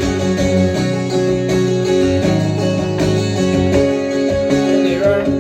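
Guitar strumming steadily with sustained chords, an instrumental passage between sung lines of a song performed live.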